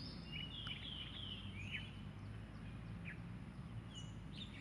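Small birds chirping in the open air: a quick run of short, falling chirps in the first two seconds, then a few scattered chirps, over a steady faint low hum.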